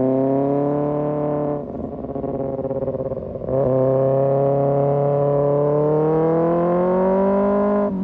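Kawasaki ZX-6R inline-four through an Arrow Pro Race exhaust, pulling under throttle with its pitch rising. About a second and a half in the note drops and turns rough and choppy for about two seconds, then the engine pulls again in one long climbing run that cuts off near the end, as at an upshift.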